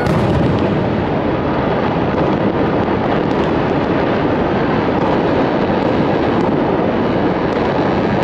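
Continuous din of many fireworks and firecrackers going off across a city, blurring into a steady rumble, with a few faint pops standing out.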